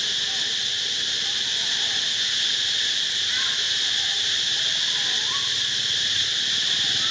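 A steady, unbroken chorus of insects shrilling high and constant, with a few faint short calls heard in the middle.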